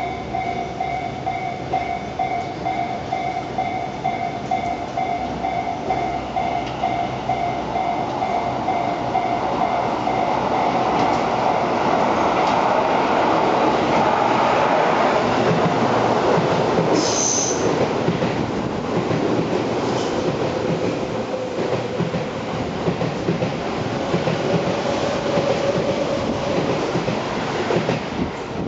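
Tobu 8000-series ten-car electric train running through a curved station at speed: the running noise builds, peaks as the train arrives and carries on as the cars pass, with wheels squealing on the curve. A steady electronic tone sounds for the first ten seconds or so.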